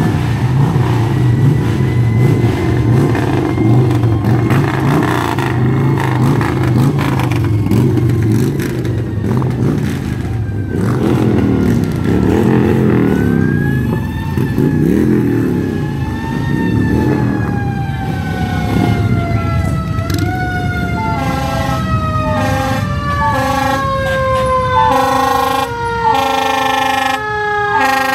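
Parade fire apparatus approaching: a low engine rumble, then fire truck sirens wailing up and down from about eleven seconds in, giving way to a long siren tone winding slowly down, with several short air horn blasts near the end as a fire engine comes into view.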